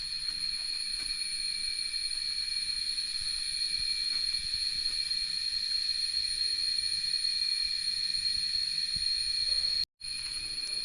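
Jungle insects droning steadily at a high pitch, several fixed tones held without a break. The sound drops out for a moment near the end.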